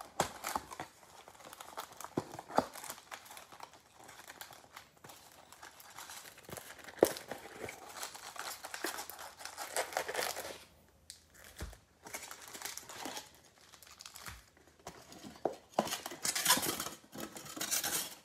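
Crinkling of foil-wrapped trading card packs as they are handled and lifted out of a cardboard box and stacked, in uneven bursts with light clicks and taps.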